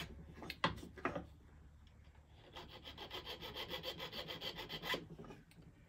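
Hand file rasping on the ends of a heavy metal ring wire, in quick short strokes about five a second after a couple of light clicks. The ends are being filed flat so they butt together with no gap for soldering.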